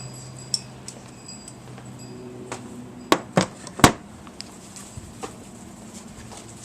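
Sharp clicks and knocks of hand tools and parts being handled while working on top of an engine, with three loud ones in quick succession about halfway through and a faint steady hum underneath.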